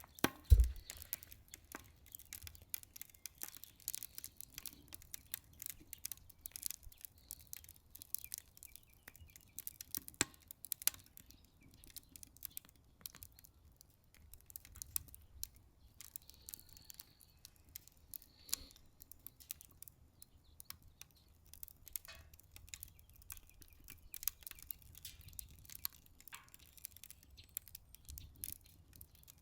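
Wood fire crackling in a Solo Stove Ranger stove-style fire pit: a continuous run of small irregular snaps and pops. A single low thump sounds about half a second in.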